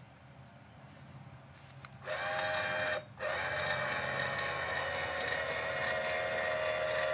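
Electric Atwood camper jack motor running with a steady whine, driving the jack leg down so its foot presses into a SnapPad. It starts about two seconds in and cuts out for a moment about a second later before running on.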